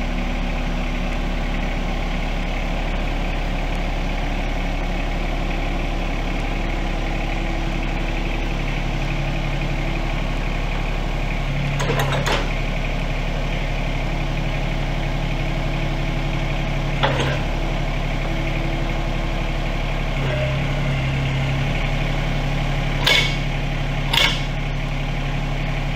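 Yanmar 424 compact tractor's diesel engine running at idle, its hum shifting in pitch a few times. Four sharp metal clunks, about 12, 17, 23 and 24 seconds in, as the quick hitch hooks take up the Titan tiller's pins and latch.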